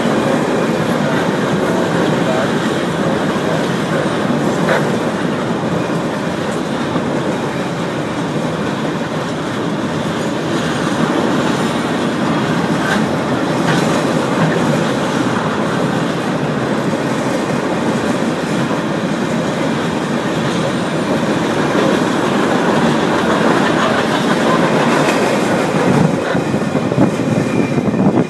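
Norfolk Southern train's cars rolling past at close range: a steady, loud rolling rumble of steel wheels on rail, with occasional clicks over the rail joints.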